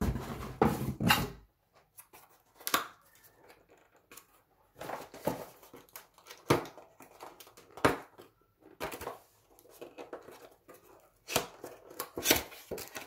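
Cardboard boxes and plastic packaging being handled, rustled and crinkled in short irregular bursts, with a heavier bump in the first second.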